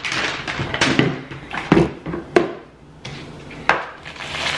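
Fast-food packaging being handled on a table: paper rustling with a few sharp knocks, then a paper burger wrapper being opened near the end.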